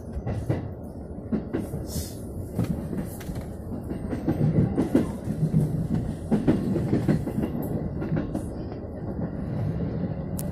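Electric commuter train running, heard from inside the front car: a steady rumble of wheels on rail, with irregular clicks and clacks from the wheels passing over the track. It grows louder for a few seconds in the middle.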